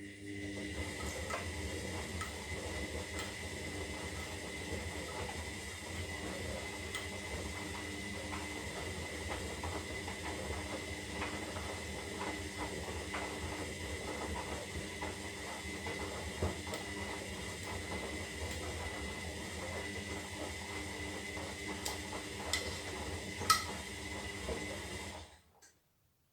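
Zanussi Lindo 300 washing machine running mid-wash on a synthetic cycle: a steady motor hum with a thin high whine and scattered light knocks. It stops abruptly about 25 seconds in.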